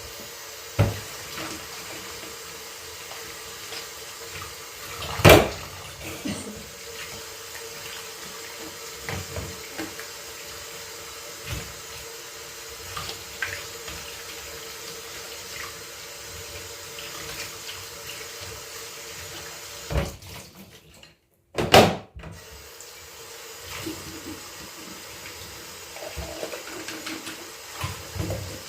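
Kitchen tap running steadily into the sink while dishes are washed, with occasional sharp knocks and clinks of dishes; the sound breaks off briefly just after twenty seconds.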